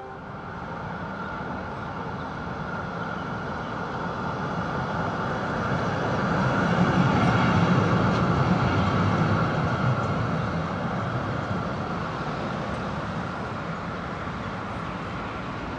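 A tram passing close by on street tracks. Its running noise grows to a peak about halfway through and then fades, over steady street traffic.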